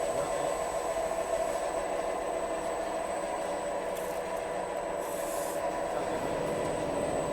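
Sectional garage door panel production line running steadily: its roll-forming and foaming machinery makes a continuous mechanical noise with a few steady tones and a thin high whine, and no distinct knocks or cuts.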